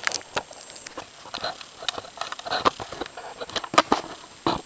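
Irregular small clicks, taps and brief scrapes of hands working a dial indicator and its mount against a table saw blade while the gauge is zeroed.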